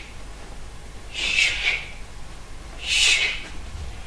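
Two swishes of a scythe stroke through grass, about a second and a half apart, each a short airy hiss.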